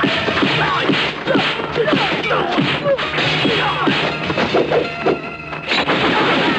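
A rapid flurry of kung fu fight sound effects, punch and kick hits with swishes, over background music. The hits thin out and the level dips about five seconds in, then a sharp hit lands near six seconds.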